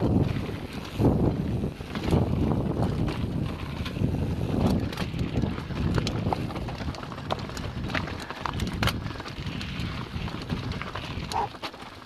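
Mountain bike riding down a dirt and rock trail, heard from a camera on the bike or rider: wind buffeting the microphone and the tyres rumbling over the ground, with frequent clicks and rattles from the bike as it goes over rocks and bumps.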